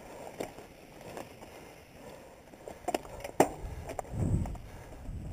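Mountain bike rolling over a rough dirt trail, its frame and parts rattling in scattered clicks and knocks, the sharpest about three and a half seconds in, with a brief low rumble just after.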